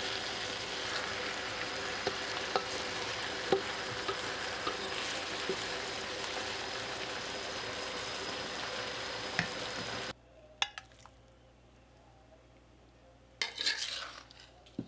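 Stir-fry of Chinese cabbage, meatball slices and bean sprouts sizzling steadily in a hot metal pan while being stirred, with occasional sharp clicks of the spatula against the pan. About ten seconds in, the sizzle cuts off suddenly, leaving only a few soft clicks and a brief rustle near the end.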